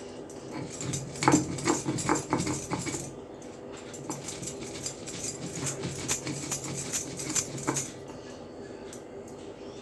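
Dry ginger being ground by hand on a flat grinding stone: irregular stone-on-stone knocks and gritty rubbing that stop about eight seconds in.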